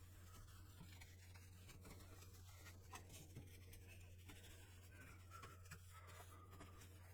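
Faint scratching and scrubbing as the dusty metal chassis of a Commodore PET is cleaned by hand, with scattered light ticks, over a steady low hum.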